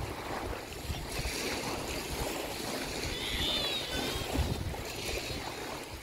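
Small waves washing on the shore, with gusts of wind rumbling on the microphone. One brief high chirp comes about three and a half seconds in.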